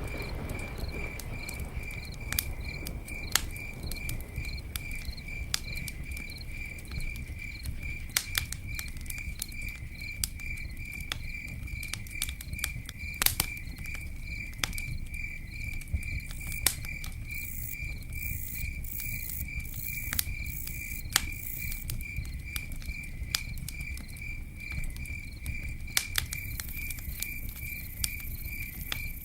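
Campfire crackling with scattered sharp pops, over a cricket chirping steadily in an even, rapid pulse.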